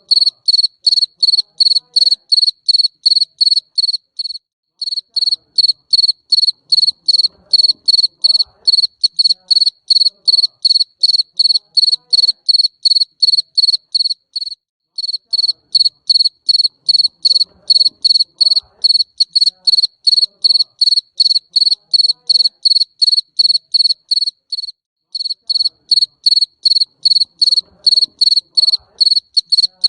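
A jangkrik mbering cricket chirping loudly and steadily: a high, clear pulse repeated about three times a second, with brief pauses roughly every ten seconds.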